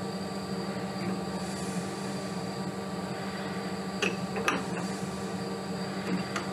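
Steady machine hum, with a few faint metallic clicks from a no-go thread gauge being turned by hand on a stainless-steel thread, about four seconds in and again near the end.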